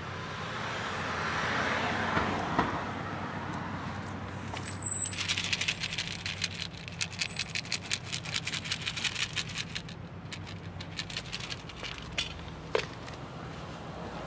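Dry cat kibble rattling against a clear plastic food container as it is shaken and poured: a rapid run of small hard clicks starting about five seconds in and lasting about five seconds. A low steady hum runs underneath.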